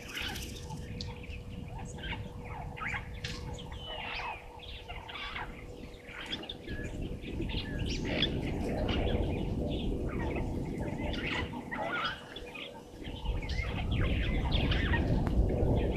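Many small birds chirping and calling in quick, overlapping bursts, with a low noise that grows louder about halfway through and a faint steady hum underneath.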